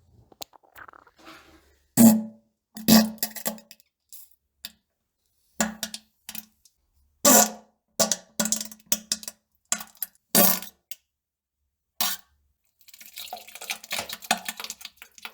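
Someone defecating on a toilet: a string of short, separate farts and plops, then a longer crackling, sputtering fart near the end.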